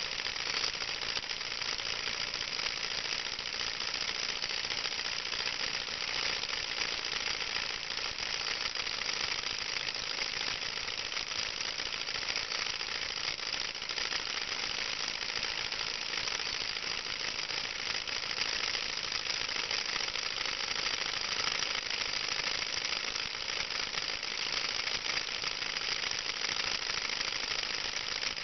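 Small model Stirling (hot-air) engine running steadily over a spirit burner, its flywheel turning a small generator: a fast, dense mechanical clatter that keeps an even level throughout.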